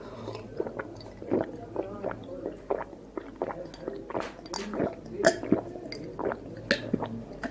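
A man gulping a drink from a glass: a string of irregular wet swallows and mouth clicks.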